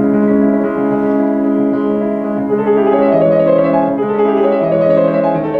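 Yamaha Disklavier DC3 white grand piano played by hand, slow held chords and melody notes ringing on into one another.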